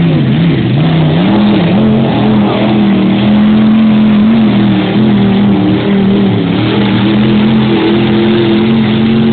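Monster truck engine running hard. Its pitch dips briefly near the start, then climbs and holds high and steady with small wobbles.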